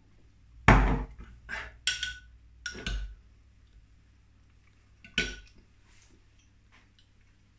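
Cutlery and dishes clattering and clinking: a run of knocks and clinks, the loudest about a second in and several more over the next two seconds, then one last clink about five seconds in, some of them ringing briefly.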